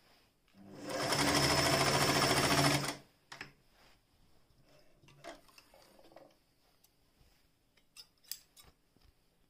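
Singer 416 electric sewing machine speeding up and stitching rapidly through fabric for about two and a half seconds, then stopping. A few light clicks and handling noises follow as the fabric is worked and drawn away.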